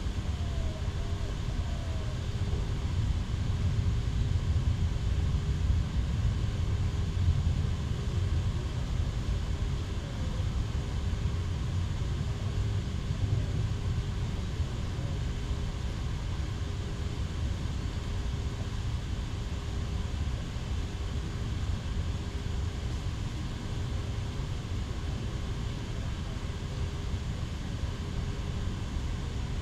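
Wind buffeting the microphone: a steady low rumble that swells a little between about four and eight seconds in, with a faint steady hum above it.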